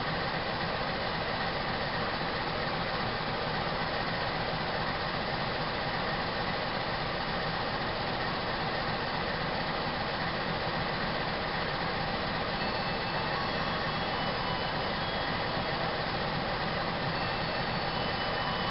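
Diesel engine of a KAI CC 206 diesel-electric locomotive running steadily at idle.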